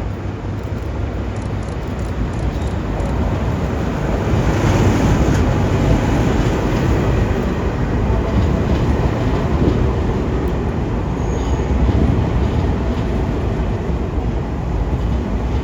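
Train arriving: a DD200 diesel-electric locomotive towing a rake of Tokyu 9000-series electric cars, with engine and wheel rumble. It grows louder about four seconds in and stays steady.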